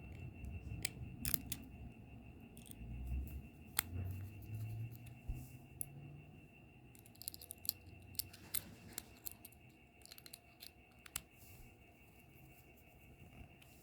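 Scattered small clicks and taps of hair-clipper parts being handled and the blade being fitted back onto the body, with a few clicks close together past the middle.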